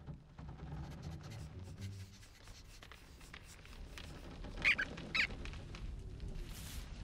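An animated squirrel squeaks twice in quick succession, two short high squeaks about half a second apart. Underneath is a faint low background rumble.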